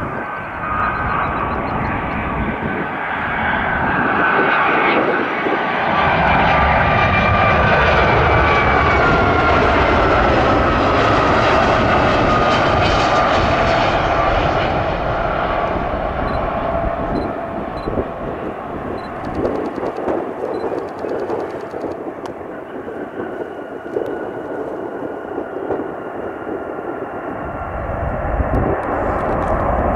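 Boeing 757-200 twin-engine jet passing close by. The engine whine and rush build up and peak about six to fourteen seconds in, and the whine slides down in pitch as the jet goes past. The sound then eases to a lower, steady rumble.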